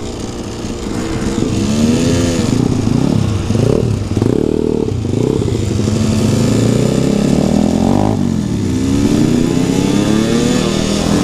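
Dirt bike engine heard from the rider's seat, revving up and dropping back several times, then pulling in a longer steady climb that falls away near the end.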